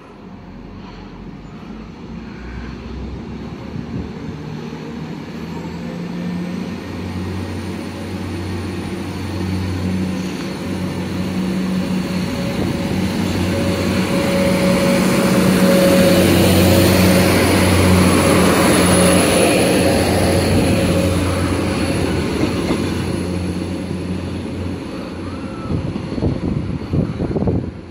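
Class 175 diesel multiple unit running past along the platform, its underfloor diesel engines droning with a faint high whine. The sound builds to its loudest about halfway through, then fades as the train draws away. Wind buffets the microphone near the end.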